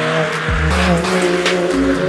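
VW up! GTI's turbocharged 1.0-litre three-cylinder engine pulling up through the revs under load on a chassis dyno, its pitch climbing and then dropping off about half a second in, with music playing over it.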